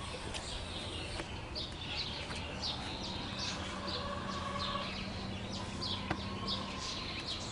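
Small birds chirping: many short, high chirps and calls repeating throughout. There is a faint steady low hum in the background and a single sharp click about six seconds in.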